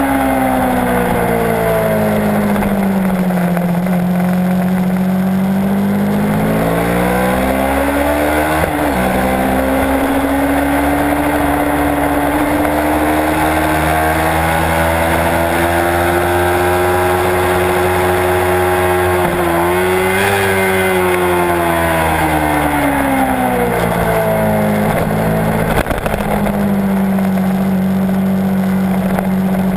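Kawasaki Ninja 650 parallel-twin engine at speed on a track lap, with steady wind rush. The revs fall over the first few seconds, climb again with a quick break about nine seconds in, rise slowly and hold high, then drop away from about twenty seconds in and settle lower near the end.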